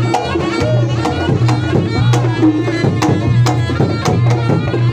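Reog Ponorogo gamelan music: kendang drum and other struck percussion keep a steady beat about twice a second under sustained pitched tones and a wavering melody line.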